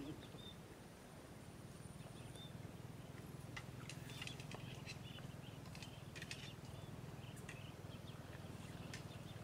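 Water buffalo grazing: faint, crisp clicks and crunches of dry grass being torn and chewed, becoming frequent a few seconds in, over a steady low hum and a few short high chirps.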